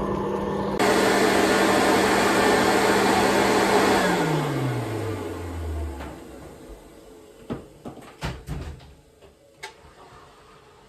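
An electric motor running with a loud rush of air, switched off about four seconds in and spinning down over the next two seconds. A few sharp knocks follow near the end.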